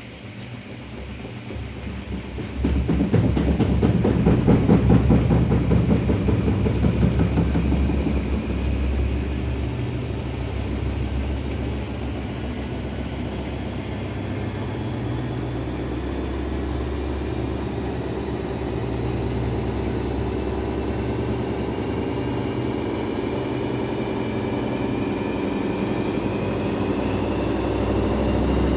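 Daewoo DWD-FT1013 front-loading washing machine spinning up with an unbalanced load. The drum knocks rapidly and loudly from about three to eight seconds in, then settles into a steady run with a motor whine that slowly rises in pitch as the spin speeds up.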